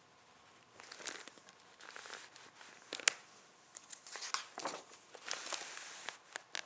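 Pages of a picture book being handled and turned: paper rustling and crinkling, with a few sharp snaps of the page. It starts about a second in.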